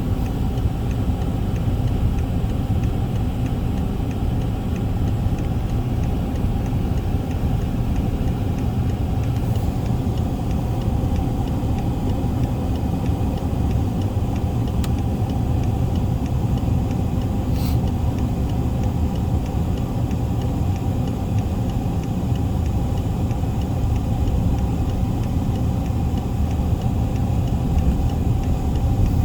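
Steady low mechanical rumble, even throughout, with a faint tick about halfway through and a brief high hiss soon after.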